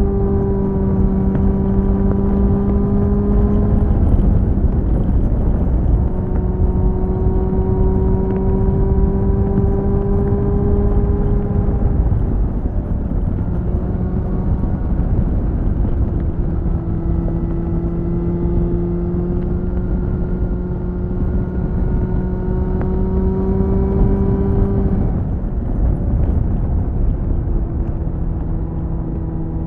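Suzuki GSF 600 Bandit's inline-four engine through a BOS slip-on exhaust, pulling steadily under way with its note slowly climbing. The note breaks and drops back about four, twelve and twenty-five seconds in, and wind rushes over the microphone throughout.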